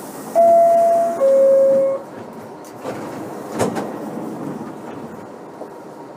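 New York City subway car door chime: two steady tones, a higher then a lower, each just under a second long, the signal that the doors are about to close. About three and a half seconds in a single thump stands out over the car's steady rumble.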